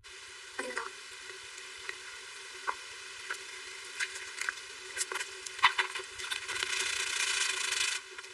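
Close-miked eating sounds of soft cake: scattered small wet clicks and squishes over a steady hiss. A louder stretch of crackling noise comes near the end and cuts off suddenly.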